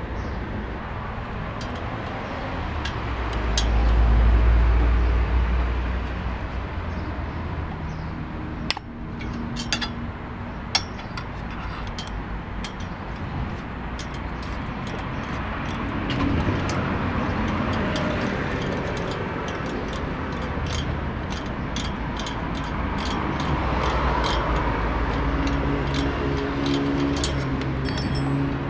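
Street traffic noise, with a loud low rumble of a passing vehicle a few seconds in and another engine droning near the end. Scattered light metallic clicks and clinks run through it as an Allen key works the small screws out of a motorcycle's oil filter cover.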